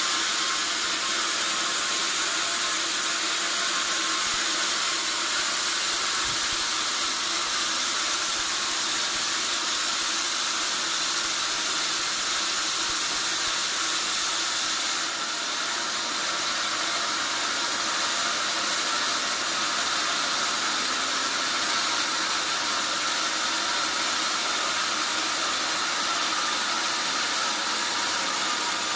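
Sawmill band saw running through a log: a steady hissing noise with a faint even hum, shifting slightly about halfway through.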